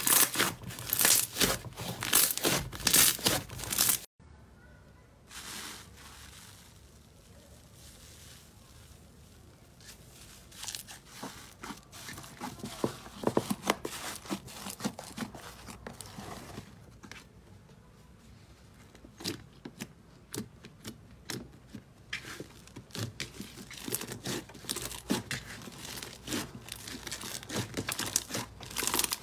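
Hands squeezing and kneading slime, a dense run of sticky crackles and small pops. Loud for the first four seconds, it cuts off sharply, stays faint for several seconds, then grows busier again through the second half.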